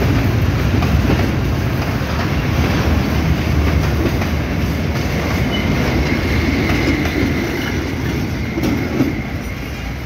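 Rail tank wagons of a fuel train rolling slowly past, a steady low rumble of wheels on track. A faint high wheel squeal joins about halfway through, and the rumble fades near the end as the wagons draw away.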